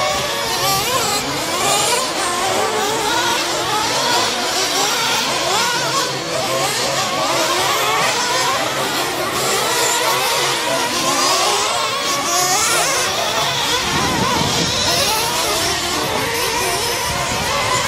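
Several radio-controlled off-road trucks racing together, their motors whining in many overlapping pitches that rise and fall as they accelerate and brake, over the hiss of tyres on dirt. A lower rumble joins near the end.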